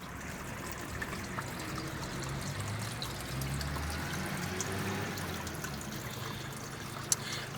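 Water trickling and splashing steadily, with a single short click near the end.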